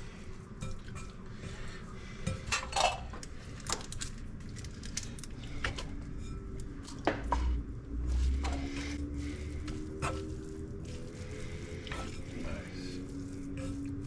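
Kitchen clatter: dishes and utensils clinking and knocking off and on, with a few sharper clinks a few seconds in and about halfway through.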